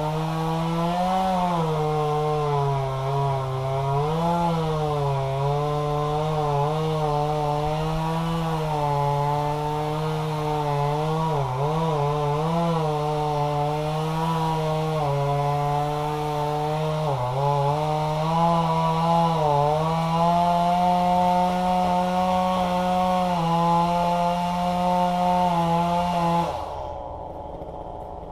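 Two-stroke chainsaw running at full throttle, its pitch dipping briefly several times as it bogs down in the cut. It cuts off sharply near the end, leaving a quieter low engine hum.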